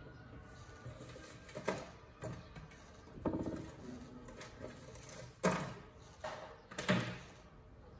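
Small craft items knocking and clattering as they are handled and set down on a wooden tabletop: about half a dozen short knocks, the two loudest in the second half.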